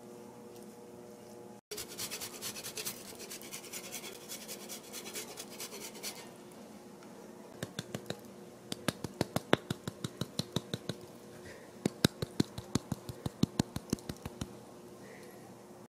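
Kitchen handling sounds: a scratchy rasp for about four seconds, then a run of sharp clicks and taps, several a second, over a faint steady hum.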